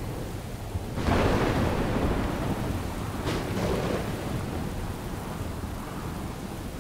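Thunderstorm: a clap of thunder about a second in, rumbling on and slowly fading with a second swell, over the steady hiss of a heavy downpour.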